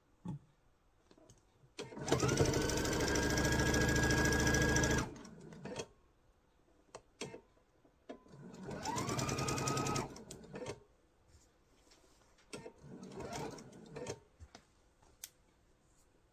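Electric sewing machine stitching seams while chain-piecing quilt squares: a run of about three seconds in which the motor whine rises and then holds steady, then a shorter run of about a second a few seconds later, with light clicks of fabric handling between.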